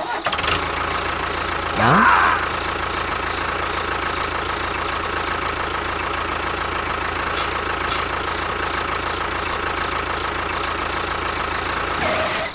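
A small motor running with a steady hum, with a brief rising tone about two seconds in; it stops near the end.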